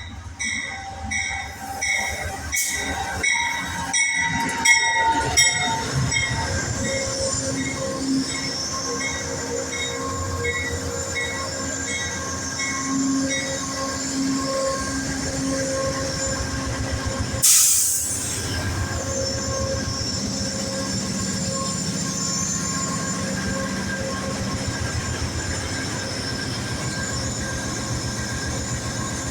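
Amtrak passenger train rolling in with its wheels and brakes squealing as it slows. A bell rings about twice a second through the first half, and there is a brief loud burst of noise about halfway through.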